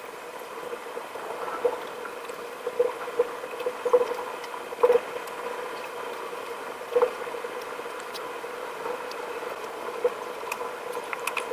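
Drawing on paper: irregular short scratching strokes and taps of a drawing tool, over a steady electrical hum.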